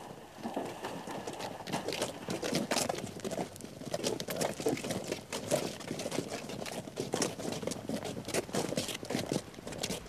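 Quick, irregular footsteps and knocks of several people in boots hurrying along, pushing an inflatable lifeboat on its wheeled launching trolley.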